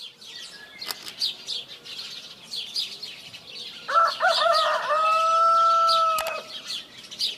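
Small birds chirping over and over, with a rooster crowing about four seconds in: a few wavering notes and then one long held note lasting about a second and a half. A few sharp clicks are also heard, one near the start and a couple as the crow ends.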